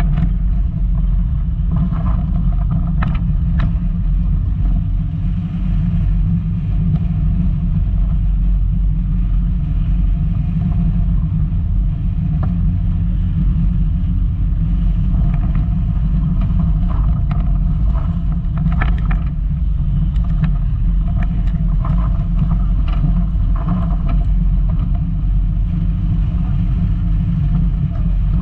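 Volkswagen Golf Mk2 driving over a rough off-road track: a steady, loud low rumble of engine and running gear, with occasional short knocks and rattles.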